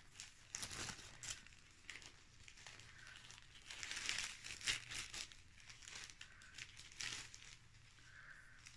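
Clear plastic bag crinkling and rustling in irregular bursts as it is handled and folded closed. The bursts are loudest around four to five seconds in.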